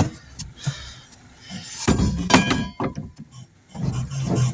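Thunks and knocks from a tire and wheel rim being handled during tire changing, with a loud metallic clank that rings briefly about two seconds in.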